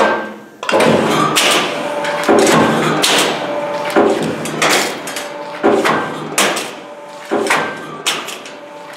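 Electromechanical guillotine shear (Cidan Rapido) cutting narrow strips off sheet metal stroke after stroke: a run of about ten sharp metallic clacks, each with a short ringing clatter, a little under a second apart.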